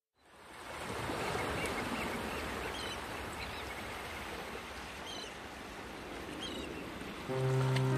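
Water rushing and splashing, fading in at the start, with a few short bird calls over it. A sustained music chord comes in near the end.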